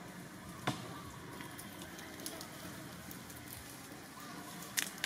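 Steady outdoor background noise with scattered light clicks, and two sharper clicks: one just under a second in and one near the end.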